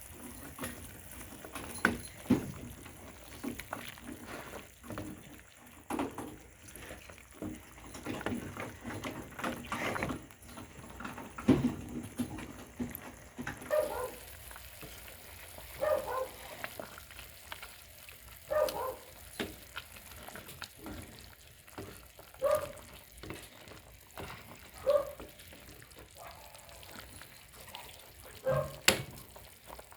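Kitchen utensils clinking and scraping as food is stirred and handled. In the second half a dog barks single barks every few seconds, about six in all.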